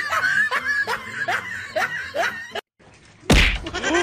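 A person snickering in a run of short rising bursts, several to the second; the laughter breaks off, and a sudden loud thump comes about three seconds in.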